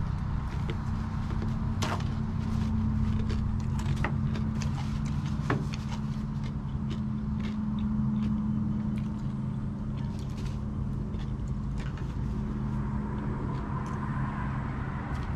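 A steady low mechanical hum, made of several fixed pitches like an idling motor, with scattered light clicks and taps over it.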